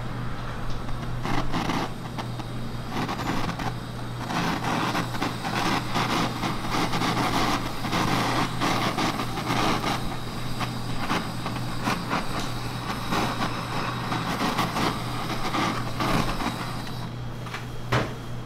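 Handheld kitchen blowtorch flame running steadily as it caramelizes sugar on a cream crepe, with small crackles from the melting sugar. The flame noise drops away near the end, followed by a single sharp click.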